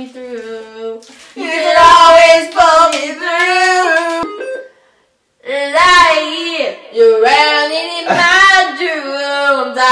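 Girls singing a pop tune, several notes held with a wavering vibrato. The singing breaks off into a moment of silence about halfway through, then picks up again.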